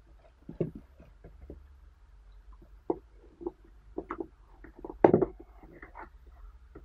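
Corrugated cardboard box being handled: scattered scrapes and light knocks as it is slid and turned on a cloth-covered table, then a louder scuff of cardboard about five seconds in as the tuck-in lid flap is pulled free of its slot.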